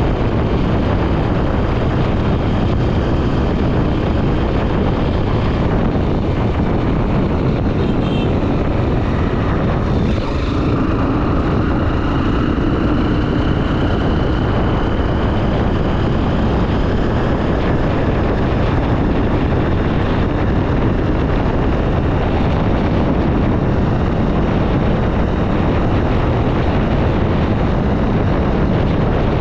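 Honda XR 250 Tornado's air-cooled single-cylinder engine running steadily under way, with heavy wind rush on the helmet-mounted camera microphone.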